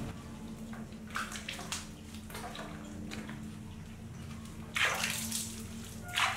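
Water splashing and dripping onto a tiled floor as a baby macaque is washed by hand, in irregular splashes, the loudest about five seconds in.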